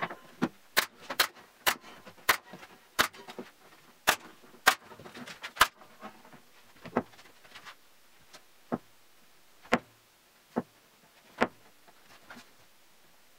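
Nail gun firing nails into a wooden frame: a quick series of sharp shots about two a second, then a few single shots spaced about a second apart near the end.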